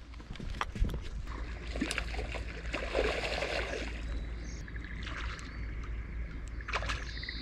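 Wild carp splashing in shallow flooded water as they spawn: a rough watery wash about two to four seconds in. A few footsteps on pavement come at the start, and small birds chirp in short repeated notes in the second half.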